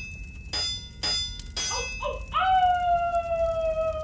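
Three ringing metallic hammer blows on an anvil, about half a second apart, followed from about two seconds in by a long wolf howl that falls slowly in pitch.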